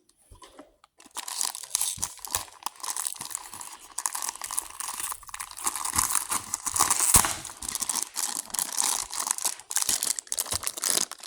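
Beyblade toy packaging being crinkled and torn open by hand: a dense run of irregular crackling and ripping that starts about a second in.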